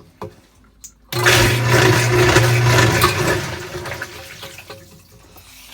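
Sump pump kicking on suddenly about a second in, its motor humming steadily under a loud rush of water. The hum stops after about two seconds, and the water sound dies away.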